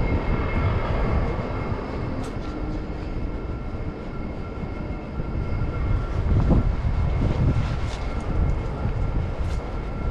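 Hong Kong MTR train passing on the nearby track: a steady low rumble with a faint steady whine over it and a few light clicks.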